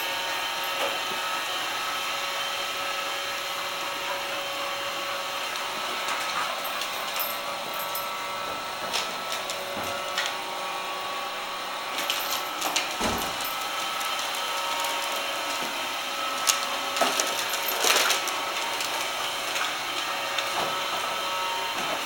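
Roomba robot vacuum running across a hardwood floor with a steady whir, with scattered clicks and taps, clustered about halfway through and again a few seconds before the end.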